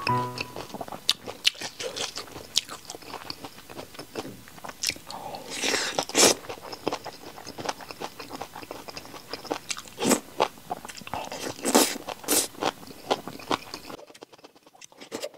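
Close-up mouth sounds of eating spicy stir-fried noodles, bean sprouts and sea hare: wet chewing with crunching, sharp mouth clicks and a few louder slurps.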